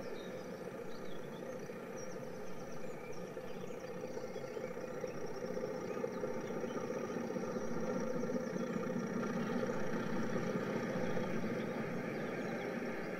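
Diesel locomotive engine running, getting louder from about halfway through as a train draws nearer, with faint birdsong in the first few seconds.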